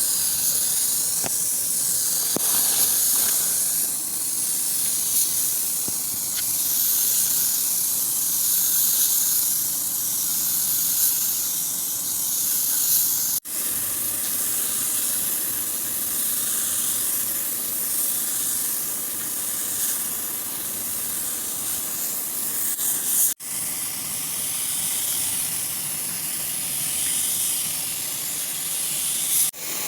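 Steady compressed-air hiss from a spray nozzle, high-pitched, cutting out sharply for an instant about 13 seconds in and again about 23 seconds in.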